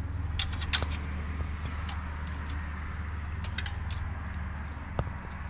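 Handling noise: a few light clicks and taps as a round off-road light is held and moved against a vehicle's grille guard, in two short clusters about half a second in and around three and a half seconds, over a steady low hum.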